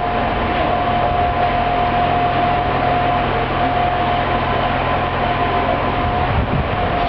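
Diesel railbus running steadily at a station, heard from inside the car: a constant engine hum with a steady high whine over it.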